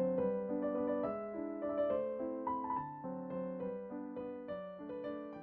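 Background piano music, a gentle melody over accompanying notes, fading out near the end.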